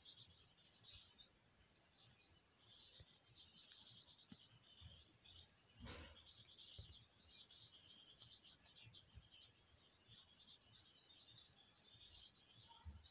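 Faint chirping and twittering of small birds in the background, with a single short soft knock about six seconds in.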